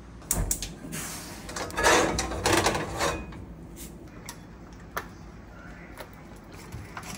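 Kitchen containers and utensils being handled: a clatter of knocks and rattling for the first three seconds or so, then a few scattered light taps.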